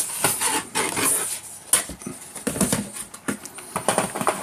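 Cardboard packaging rustling and scraping in irregular handling noises as an action figure's cardboard insert tray is slid out of its box.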